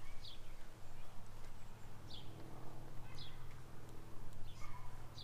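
A bird calling outdoors: several short, high chirps that slide downward, a second or so apart, over a steady low hum.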